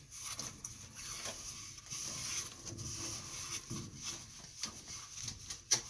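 Cloth rag wiping and rubbing inside a boiler's combustion-fan mounting opening: soft, irregular scuffing with small clicks and a sharper tap near the end.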